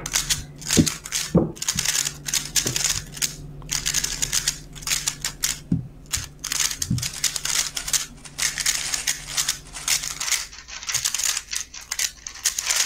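3x3 speedcube being turned fast: rapid, dense plastic clicking and clacking, with a few soft knocks on the table.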